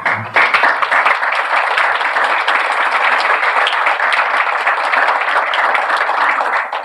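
Audience applauding: dense, steady clapping that breaks out at once and holds level throughout.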